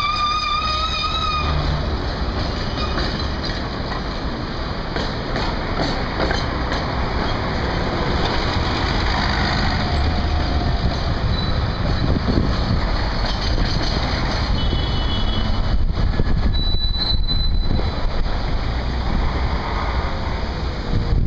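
Busy city street traffic: buses and cars pass close by with steady engine rumble and tyre noise. Near the start, a tram's wheels squeal briefly with a wavering high tone that dies away.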